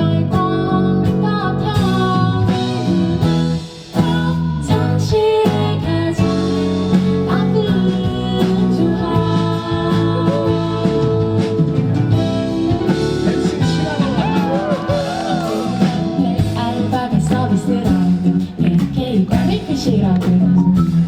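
Live pop band music led by guitar, with singing over it and one brief drop in loudness about four seconds in.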